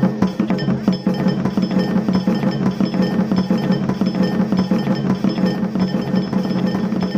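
Dance music with dense, rapid percussion strikes and metallic clinking over steady held tones.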